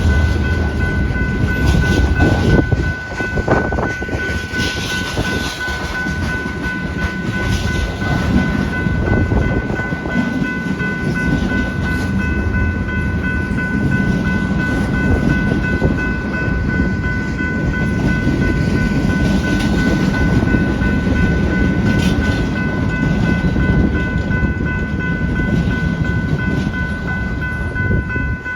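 BNSF freight train cars rolling past, with a steady deep rumble and a few sharp clicks. A steady high whine runs through it. Wind buffets the microphone.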